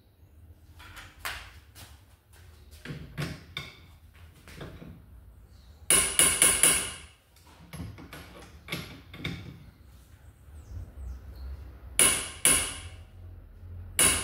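Hammer blows on metal with a ringing note: a quick run of four or so strikes about six seconds in and single heavy blows near the end, with lighter knocks and clinks between.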